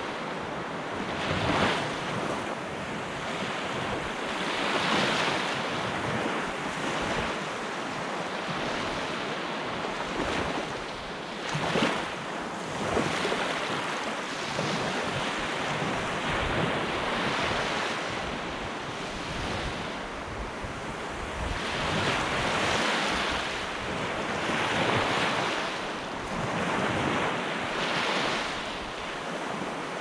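Small Gulf of Mexico waves breaking and washing up a sandy beach, the surf swelling and easing every few seconds, with wind rumbling on the microphone.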